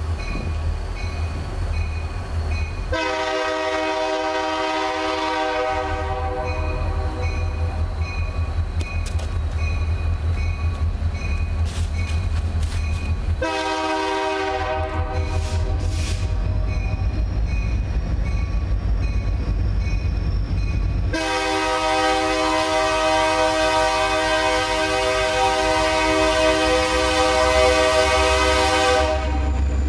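Diesel locomotive horn sounding for a grade crossing as the coal train approaches: a long blast about 3 seconds in, another about 13 seconds in, then a long held blast from about 21 to 29 seconds. Underneath runs the low rumble of the approaching locomotive, and a crossing bell rings steadily.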